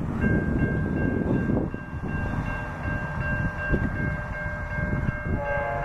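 Railroad grade-crossing warning bell starts ringing a moment in as the crossing signals activate, a steady high ringing over a low rumble. Near the end a lower chord joins in, the horn of the approaching train.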